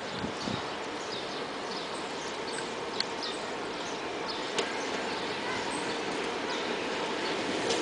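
Birds chirping over a steady background hum, while the running noise of an ÖBB class 1216 Taurus electric locomotive hauling a freight train slowly grows louder toward the end. Two sharp clicks, about three and four and a half seconds in.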